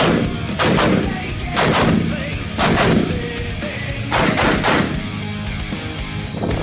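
Gunshots fired at a steady pace of about one a second, two of them close together near the four-second mark, over background music.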